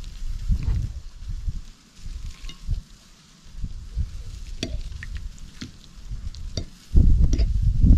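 Two metal forks clinking and scraping against a ceramic plate as cooked rabbit meat is pulled apart, in scattered sharp clicks. A low rumble with thumps runs underneath, loudest in the last second.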